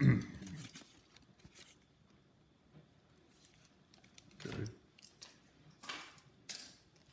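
Unboxing packaging handled on a tabletop: a thump at the start, then faint, scattered rustling of paper cards and plastic bubble wrap, with a few short crinkles near the end.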